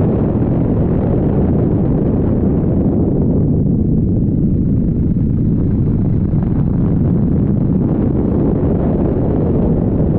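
Helicopter in flight, heard from on board: a loud, steady low rumble of engine and rotor with wind noise on the microphone.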